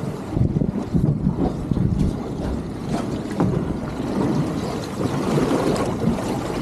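Wind buffeting the microphone in irregular gusts over the steady wash of ocean water around a small fishing boat.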